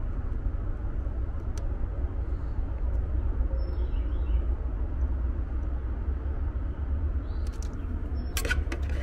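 Steady low outdoor background rumble, with a few sharp clicks near the end.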